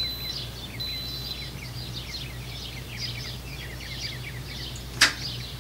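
Birds twittering in many short, falling chirps over a steady low hum, with one sharp metallic clink about five seconds in as a metal measuring spoon touches the stainless steel pot.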